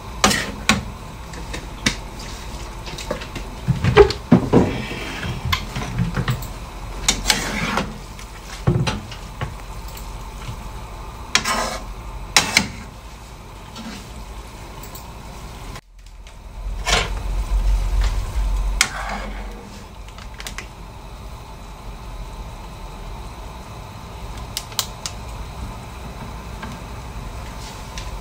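Metal spatula and ladle scraping and clanking irregularly against a large wok as rice noodles are tossed with soy sauce. A low rumble lasts about two seconds just past the middle, and the clanks grow sparse and faint toward the end.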